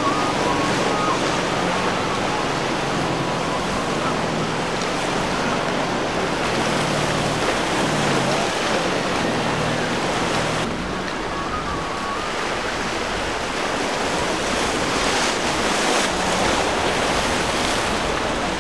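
Surf and breaking wave wash with wind buffeting the microphone, over the steady drone of a MasterCraft wake boat's inboard engine. The engine's pitch dips briefly and comes back up about eight seconds in.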